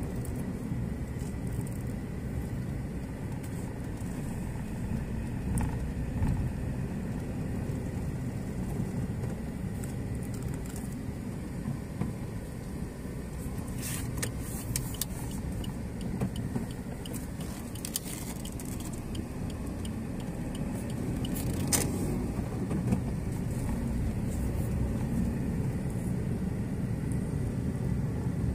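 A car driving along a street: a steady low rumble of engine and tyres, with a few brief clicks partway through.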